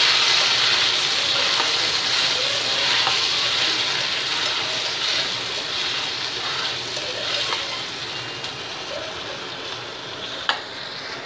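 Boiled elephant yam cubes sizzling as they fry in oil in a stainless steel kadai, the steady hiss slowly dying down as the cooking water boils off. There is a single sharp click near the end.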